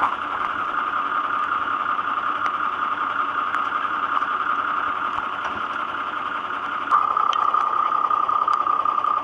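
A boat's inboard engine running steadily, heard muffled. About seven seconds in the sound gets a little louder and its tone changes slightly.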